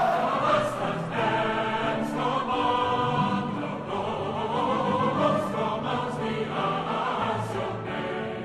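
Choral music: voices singing held notes over a musical backing, getting quieter near the end.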